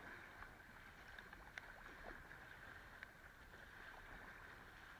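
Near silence: a faint, steady rush of river water, with a couple of faint clicks.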